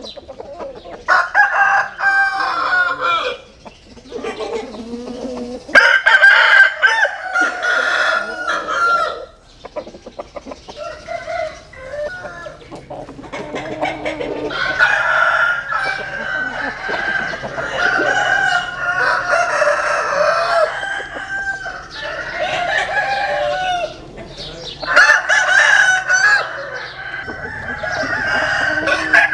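Gà nòi gamecock roosters crowing again and again, one long crow after another, with crows overlapping in the middle stretch.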